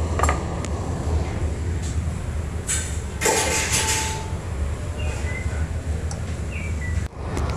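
Steady low rumble of commercial kitchen ventilation machinery, with a few sharp knife taps on a plastic cutting board in the first two seconds and a brief hissing rush about three seconds in.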